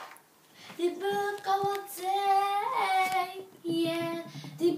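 A girl singing on her own, a tune of short held notes that starts about a second in, with a brief upward slide in pitch midway.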